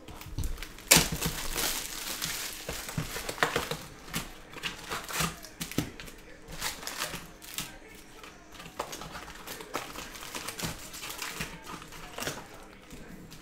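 Plastic wrap being torn and crinkled off a cardboard trading-card hobby box, then the box opened and its foil card packs gathered and stacked, giving a run of sharp crinkles and rustles with the loudest crackle about a second in.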